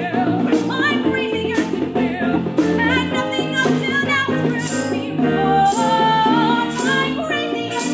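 A woman belting a musical-theatre song over a live band and orchestra. Her sung line wavers with vibrato, and the drum kit adds regular cymbal strikes.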